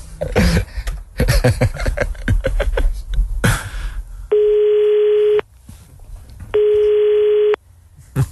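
After a few seconds of voices, a telephone ringback tone sounds twice. Each is a steady beep of about a second, with about a second between them, heard over the phone line as the call rings unanswered.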